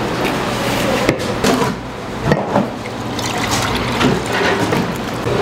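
Liquid poured into earthenware bowls, first from a plastic bowl and then from a metal kettle, trickling and splashing as the bowls fill, with small clinks.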